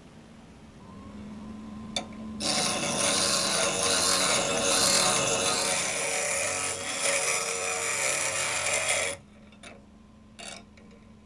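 Bench grinder running with a low hum, then about two seconds in a piece of metal is held against the spinning wheel, giving a loud grinding rasp for about seven seconds. The grinding stops abruptly and the motor hum carries on, with a couple of faint clicks.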